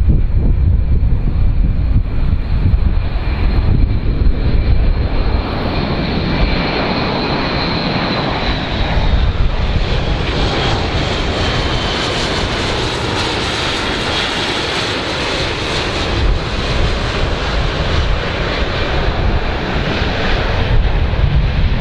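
Airbus A400M Atlas's four turboprop engines and eight-bladed propellers droning as the aircraft passes low overhead with gear down. A high whine slowly falls in pitch and is loudest midway through, over a deep rumble, with wind rumbling on the microphone at the start and end.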